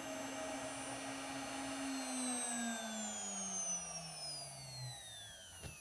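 CNC router spindle whining steadily, then from about two seconds in winding down with a falling pitch as it spins down after finishing the cut. A short click comes near the end.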